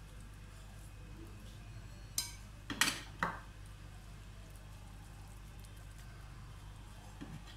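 Hands working spice paste into a raw chicken in a stainless steel bowl, with a quick cluster of three or four sharp clinks against the bowl about two to three seconds in. A steady low hum sits underneath.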